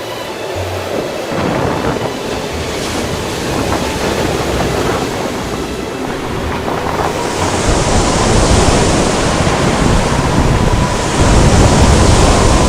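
Wind buffeting the microphone over rushing, splashing water, as from a sailing boat under way. It gets louder about halfway through.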